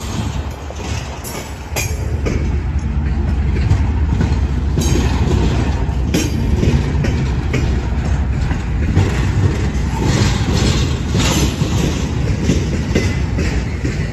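Double-stack intermodal well cars of a freight train rolling past close by: a steady rumble of steel wheels on the rails with repeated clacks. It gets louder about two seconds in.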